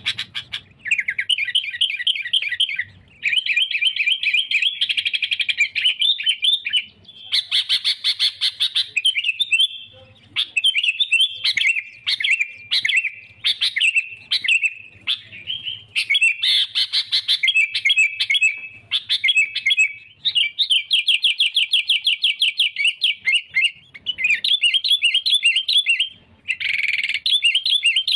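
Sooty-headed bulbul singing hard in fast, chattering phrases of rapid notes, each a second or a few long, broken by short pauses. It is the rival-challenging song of a bird looking for a fight.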